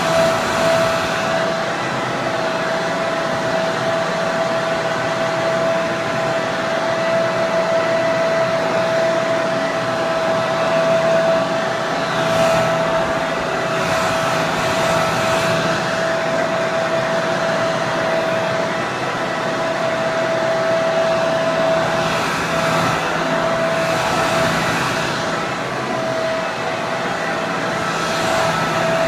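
Hair dryer running steadily: a continuous rush of blown air with a steady high motor whine.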